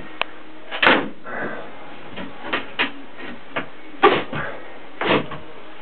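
A handful of irregular knocks and clicks, the loudest about a second in, over a steady hiss.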